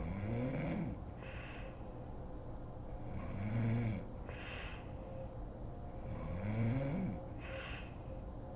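A sleeping woman snoring: three snores about three seconds apart, each rising and falling in pitch, each followed by a short breathy exhale.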